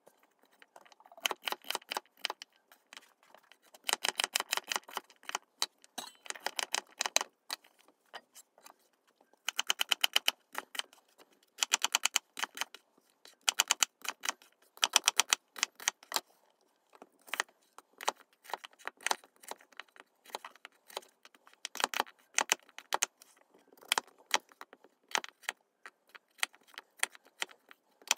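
Kitchen knife chopping carrots, onion and apple on a wooden chopping board: quick runs of sharp knocks as the blade strikes the board, with short pauses between runs.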